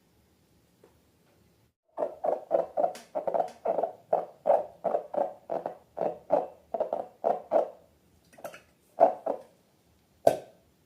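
Rapid squelching of slime being worked by hand, about three to four squishes a second, then a few slower squishes and one sharper smack near the end.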